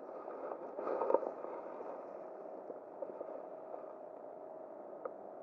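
Steady rush of flowing river water, with a few small clicks and a brief louder rustle about a second in.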